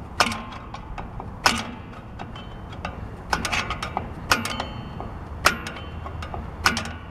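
Star-wheel adjuster of a Ford Ranger rear drum brake clicking as it is turned with a screwdriver: a sharp click every second or so, with fainter ticks between. Each click is the adjuster advancing a notch, spreading the new brake shoes to take up play in the drum.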